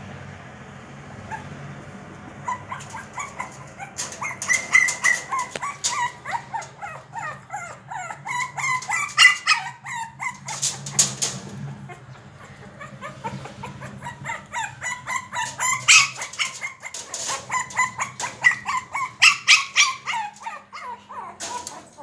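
Shih tzu puppy yipping and whimpering, short high-pitched calls several a second, starting a couple of seconds in and carrying on with a brief break about halfway: a puppy fretting to get through a closed screen door.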